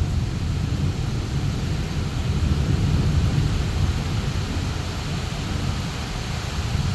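Heavy rain pouring down over a low rolling rumble of thunder, which eases in the first second and then holds steady.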